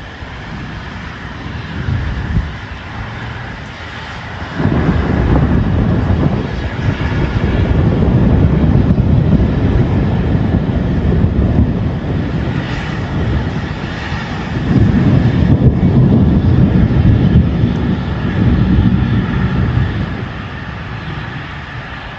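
Rain and hail storm noise: a dense rushing, rumbling sound that swells about four seconds in, dips briefly near the middle, and fades toward the end.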